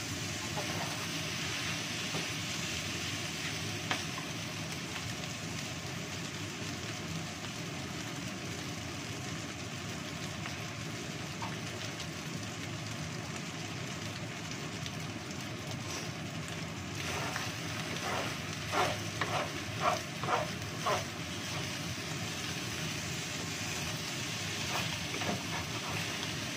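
Fried rice sizzling steadily in a wok over a gas flame as it is stir-fried with a wooden spatula. About two-thirds of the way in comes a quick run of louder scrapes of the spatula against the pan.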